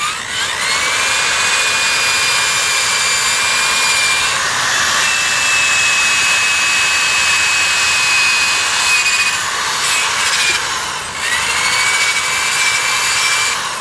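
Corded electric drill spinning a polishing pad against an alloy car wheel, a steady high-pitched motor whine over the hiss of the pad on the rim. It spins up at the start, steps a little higher about four seconds in, dips around ten seconds as it slows, spins back up and stops near the end.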